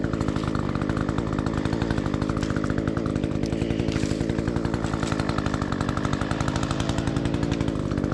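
Small engine of a handheld cutting tool running steadily at speed while cutting brush and small branches, with no let-up.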